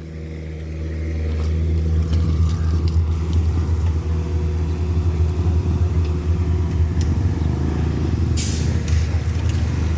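Excavator's diesel engine running, its low drone growing louder over the first two seconds and then holding steady under load. A short hiss comes about eight and a half seconds in.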